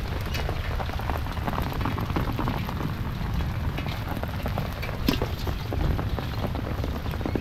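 Steady rain falling on grass and open water, with many scattered drop ticks over a constant low rumble.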